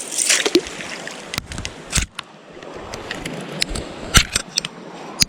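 Small stream running steadily, with a brief splash just after the start as a little brook trout is let back into the water. Scattered sharp clicks and knocks follow, the loudest about two seconds in and again about four seconds in.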